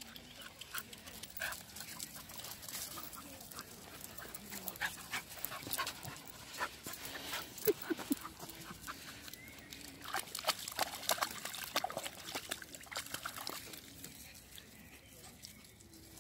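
Dogs and puppies panting and moving about, with irregular crunching and scuffing of feet and paws on sandy ground and dry twigs.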